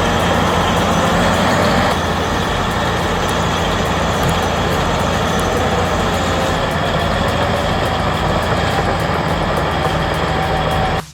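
Heavy diesel engine of a bulldozer running steadily, with continuous machine noise throughout.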